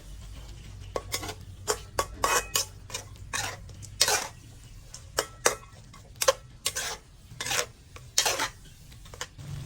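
A utensil clinking and scraping against cookware in irregular strokes, roughly one or two a second, as food is stirred or mixed, over a low steady hum.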